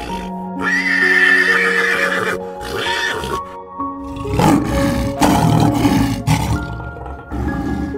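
A horse whinnies with a wavering, drawn-out call about half a second in, lasting nearly two seconds, over background music with steady melodic notes. From about halfway, lions give rough, pulsing growls that come and go over the music.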